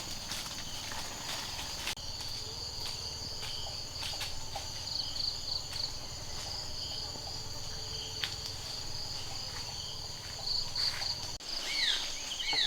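Forest insects, crickets or similar, buzzing in a steady high-pitched chorus, with a few faint ticks. Near the end, a few quick falling chirps come in.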